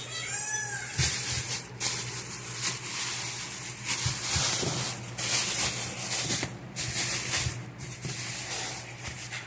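Plastic grocery bags crinkling and rustling as they are handled, in irregular bursts, with a short squeaky rising-and-falling tone about half a second in.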